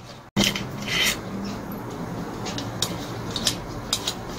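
Bolts holding a brush cutter's muffler being undone with a hand tool: metal scraping and rubbing with a run of sharp clinks. It starts suddenly a moment in.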